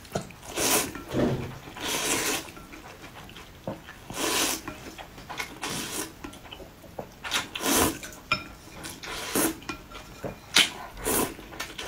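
Noodles being slurped up from a bowl of broth, in a run of loud slurps of about half a second each with short pauses between them.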